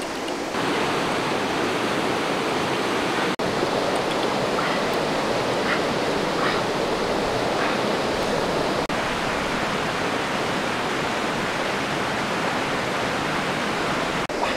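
Steady rush of a river running over rocky rapids. It drops out for an instant about three and a half and nine seconds in.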